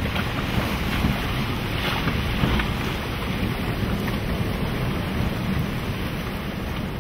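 Wind buffeting the microphone over the steady wash of rough sea, aboard a small boat.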